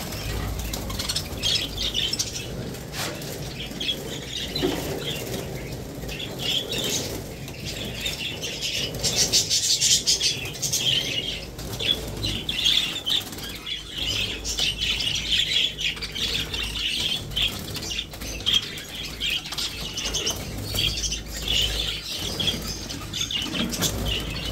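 A cage full of budgerigars chattering and chirping continuously, with wings flapping as the birds are disturbed and caught by hand. A steady low hum sits underneath.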